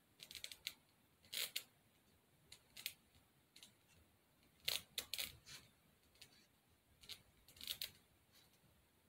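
Faint, scattered short scrapes and clicks as spackle is worked along the edge of a foam heart with a small hand tool, in a few separate clusters of strokes.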